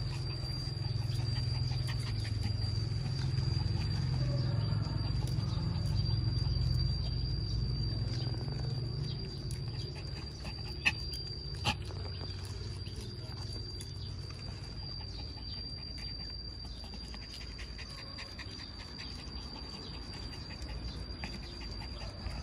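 Poodle panting, with a steady high-pitched tone behind it and two short sharp clicks about eleven seconds in.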